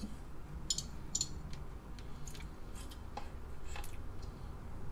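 A few faint, irregular light clicks and ticks of small handling on a workbench, over a steady low hum.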